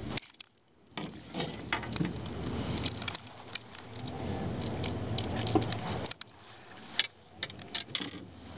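Handling noise: irregular sharp clicks and light knocks as fishing gear is handled on a fibreglass boat deck, over a low background rumble, after a brief near-silent gap just after the start.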